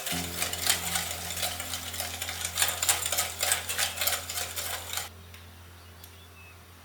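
A utensil stirring in a mixing bowl, with quick scraping and clicking against the bowl, cutting off abruptly about five seconds in.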